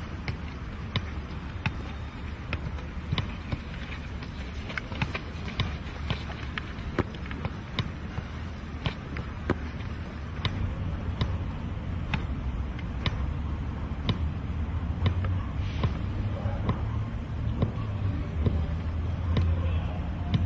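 A football being juggled and kicked: a string of sharp, irregular ball touches against a boot, about one or two a second, over a steady low rumble.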